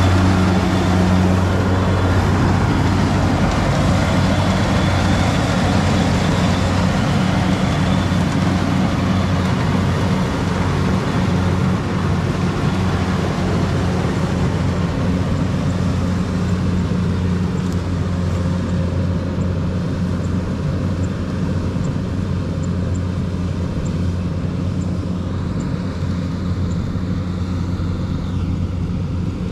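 Kubota rice combine harvester running steadily with a low engine drone. The brighter mechanical noise above the drone thins out about halfway through as the machine moves away.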